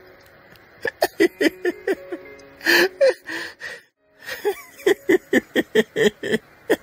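A baby macaque giving rapid strings of short squeaking cries, about four or five a second, over background music. A louder, rougher cry comes near the middle, just before the sound briefly drops out.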